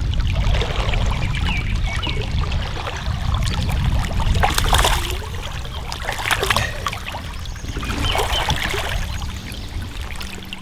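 Creek water splashing and sloshing as a hooked trout thrashes at the surface and is released. The splashes come in bursts about four, six and eight seconds in, over a steady low rumble.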